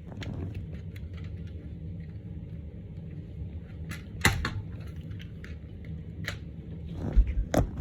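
Plastic clicks and knocks of a Fire Sentry 0914 smoke alarm being handled while its battery is swapped, with a few sharp clicks, the loudest about four seconds in, and a dull thud near the end.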